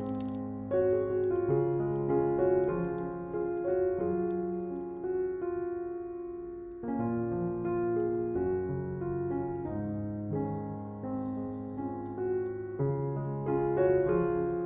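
Background music played on piano: slow sustained chords and a melody.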